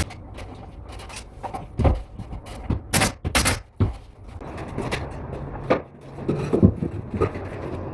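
Scattered knocks and clatters of carpentry work on building materials, with two sharp cracks about three seconds in.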